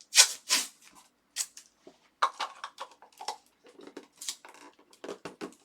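A trading-card pack's foil wrapper being crinkled and torn open, a series of short, sharp rustles with the loudest near the start.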